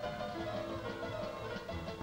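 Instrumental background music with a quick melody of short notes over a pulsing bass line.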